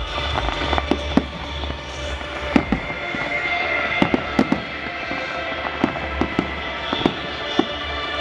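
Fireworks display: shells bursting in irregular sharp bangs, several a second at times, over steady music.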